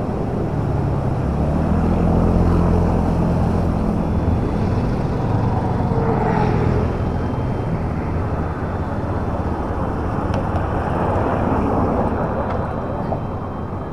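Road traffic on a bridge: a vehicle engine running steadily for several seconds over a constant rush of traffic and wind noise.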